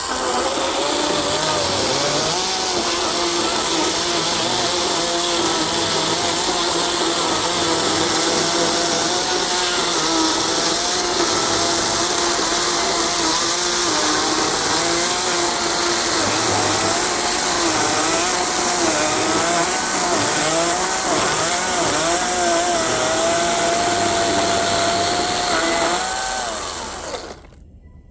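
Ego 16-inch 56-volt battery chainsaw cutting into a log, its motor and chain whine wavering in pitch as the cut loads it, then stopping abruptly near the end. By the owner's account the chain is dull and is throwing dust rather than chips.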